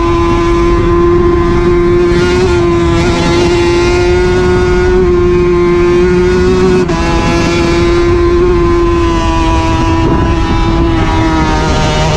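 Suter MMX 500 two-stroke V4 racing engine at high revs under full throttle, heard on board, holding a nearly steady high pitch with a brief dip in pitch and loudness about seven seconds in. Wind rush on the on-board microphone runs underneath.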